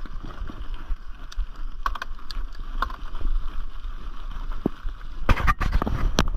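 Mountain bike riding over a gravel path: a steady low rumble of the tyres with scattered clicks and rattles from the bike jolting over the stones, a loud cluster of knocks about five seconds in.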